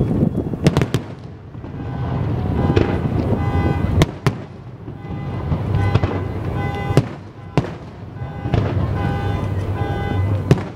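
Aerial fireworks shells bursting: about six sharp bangs, two in quick succession about a second in and the rest spread a few seconds apart.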